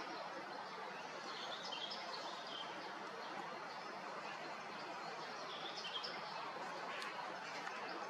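Faint songbirds chirping in scattered short calls over a steady background hiss of outdoor ambience.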